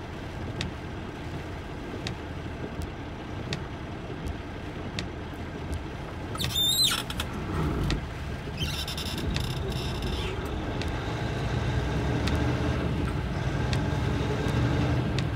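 Steady low road noise inside a car's cabin as it drives slowly on a rain-soaked street. A brief, wavering high-pitched squeal comes a little past halfway, followed about two seconds later by a short hiss lasting a second or two.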